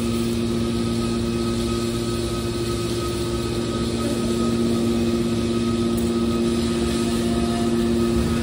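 Scrap car baler running: a steady machine hum with a constant drone of several fixed tones over mechanical noise.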